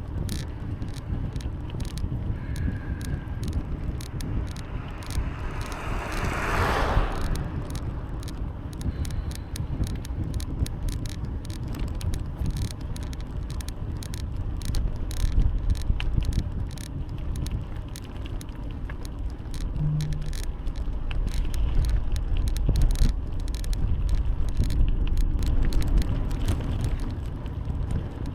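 Riding noise from a bicycle on the road: wind rumbling on the microphone and tyre noise, with frequent small rattles and clicks from the bike. A brief whoosh about six seconds in.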